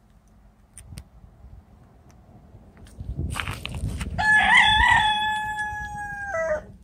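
A rooster crowing once: a long cock-a-doodle-doo that wavers at first, holds a steady note, then drops in pitch and stops. A rustling noise comes just before it.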